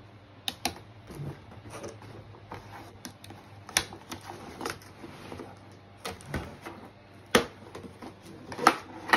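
Scissors snipping and a cardboard box's tabs and flaps being handled during unpacking, heard as a string of irregular sharp clicks and snaps.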